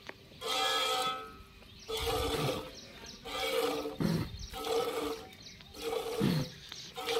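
Goat being milked by hand: squirts of milk hit a steel pot about once a second, each with a hiss and a ringing of the pot's metal.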